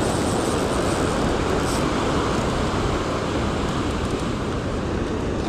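Surf washing up the beach with wind on the microphone: a steady, even rush.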